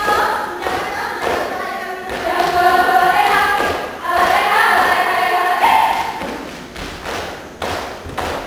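Saman dancers singing a chant together in unison over rhythmic thumps of hand-claps and body slaps. About six seconds in the singing stops, leaving a run of sharp slaps.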